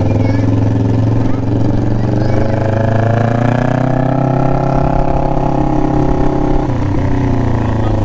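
Kawasaki Ninja inline-four running through an SC-Project exhaust while riding slowly. The engine note rises gently and eases back, then drops suddenly about seven seconds in.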